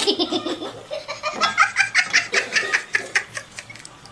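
A person laughing hard in quick repeated bursts. The laugh is lower-pitched at first and rises to a higher-pitched run from about a second in.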